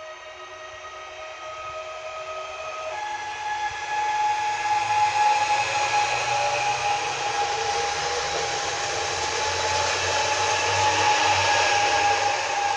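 Pesa Elf 2 electric multiple unit pulling out and passing close. Its traction motors give a steady whine that steps up in pitch about three seconds in, and wheel-on-rail noise grows louder as the cars go by.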